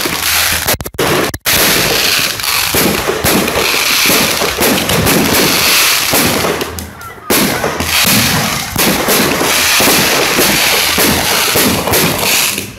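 Fireworks going off in a dense, continuous barrage, loud on the microphone, with a brief dropout about a second in and a short lull a little past the middle.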